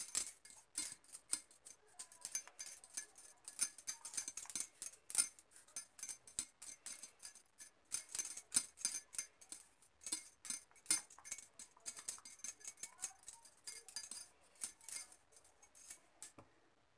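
Bangles clinking faintly in quick, irregular little clicks as hands shape and pat a stuffed dough ball.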